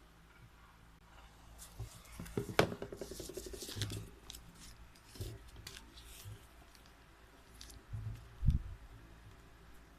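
Scissors snipping and paper rustling as paper is cut and handled, with a cluster of sharp clicks in the first half. A dull thump near the end is the loudest sound.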